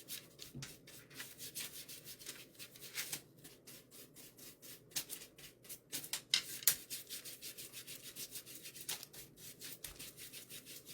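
Paintbrush scrubbing and dabbing on bare wood, a quick, irregular run of short scratchy strokes, a couple of them louder a little past the middle, as paint is worked thinly into the board for a whitewashed look.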